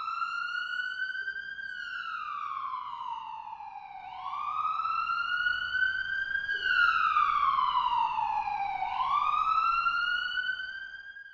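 Emergency-vehicle wail siren, its pitch rising and falling slowly in a repeating cycle of about five seconds.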